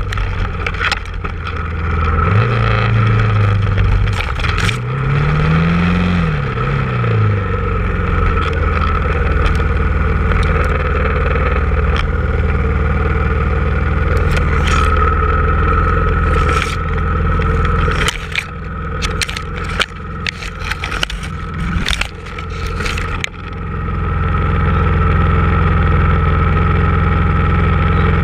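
Engine of a Honda off-road machine running, its pitch rising and falling twice in the first several seconds, then settling to a steady idle. Sharp cracks and rustles of brush and branches come in the middle.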